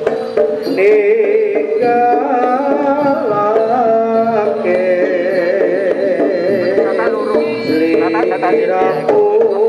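Javanese jaranan accompaniment playing: hand drums under a wavering melody line with heavy vibrato.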